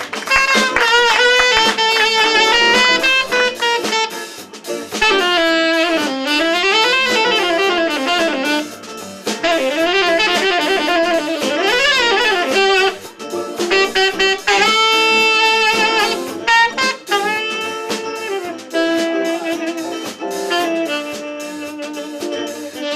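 Tenor saxophone playing a jazz solo, with bent notes and quick runs, over live band accompaniment.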